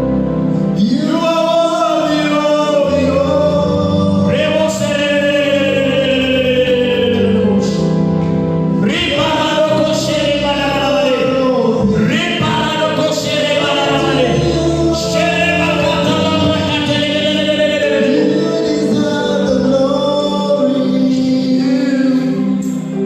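Gospel music with singing: voices singing over sustained keyboard chords.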